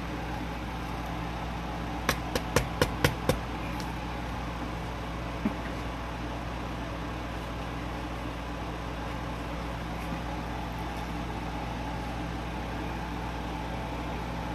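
A steady low mechanical hum, with a quick run of about six sharp light taps a couple of seconds in and one more tap a little later.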